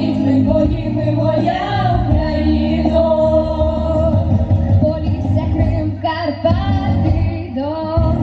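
A vocal group singing with instrumental backing, long held notes over a steady bass line.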